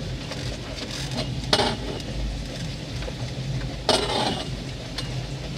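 Fishing boat's motor running with a steady low hum, broken twice, about one and a half and four seconds in, by a brief sharp splashing clatter.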